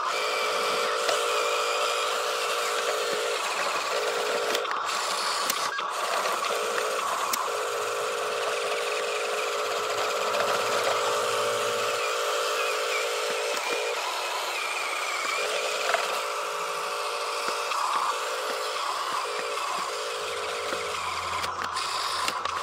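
A Huina RC dump truck's small electric drive motor and gearbox whining as it drives, with a steady buzzy whine that stops and restarts several times in short spells as the throttle is let off and reapplied.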